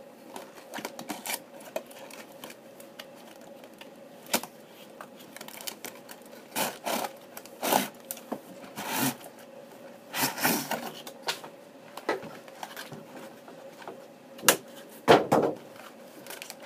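Toy packaging opened by hand: a cardboard box with a clear plastic window gives scattered clicks, scrapes and rustles as its flaps are pulled open and the cardboard tray of die-cast toy cars slides out. The loudest knocks come near the end.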